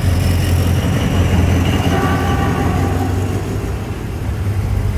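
Diesel train engine running steadily, a loud, deep hum with no letup, while the train stands at the platform.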